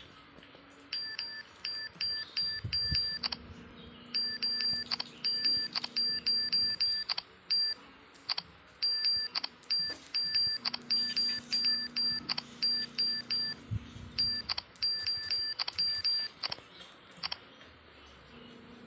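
Smartphone keyboard key-press sound effect: a short chime with each tap while typing. The taps come in irregular runs of several a second with brief pauses and stop near the end.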